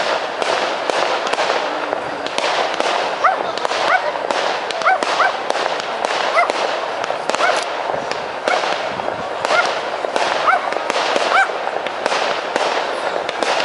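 Fireworks display: shells bursting with dense, continuous crackling and popping. From about three seconds in, short high yips repeat roughly once a second over the crackle.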